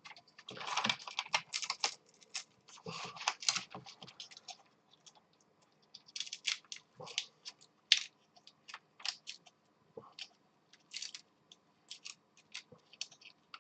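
Irregular scraping, crackling and clicking as the adhesive Mylar contact sheet of an Atari 1200XL keyboard is prised and peeled off the circuit board with a screwdriver. The sound is dense for the first few seconds, then thins to scattered single clicks.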